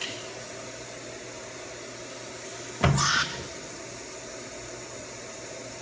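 A CNC router's automatic tool-change spindle releases a tool holder about three seconds in: a clunk, then a short hiss of compressed air. A steady hum and hiss sits underneath.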